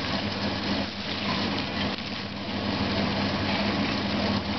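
An engine running steadily: a constant low hum with an even tone and no change in speed.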